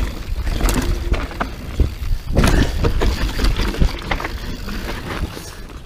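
Mountain bike running fast down a dirt trail, with heavy wind rumble on the microphone and repeated knocks and rattles from the bike as it hits bumps and lands off small drops. The noise eases near the end as the bike slows.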